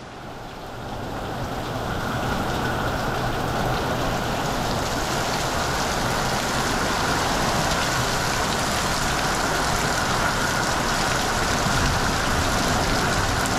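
Heavy thunderstorm rain pouring down in a dense, steady hiss that fades up over the first couple of seconds.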